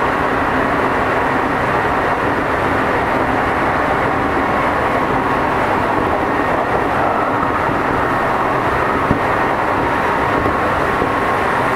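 Tokyu 5050 series electric train running along the track, a steady rumble of wheels and motors with a faint steady tone over it and one small click about nine seconds in.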